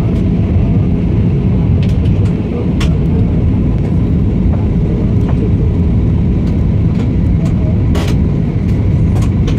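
Airliner cabin noise during the descent to land: a steady, loud rumble of engines and rushing air, with a few faint clicks.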